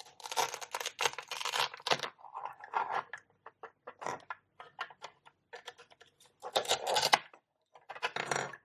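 Velcro strips tearing apart as a toy knife cuts pretend-food onions in two. It comes as a run of rasping rips, a long one at the start and another about two-thirds of the way in, with shorter scrapes and handling noises between.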